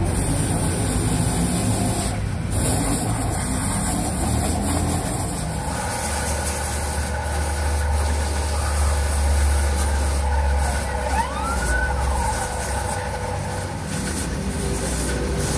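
A hose-fed rotary grinder buffing the rubber of a tractor tyre's torn sidewall, a steady scraping noise. From about six seconds in a deep engine rumble joins it, and near the middle a short tone rises and falls.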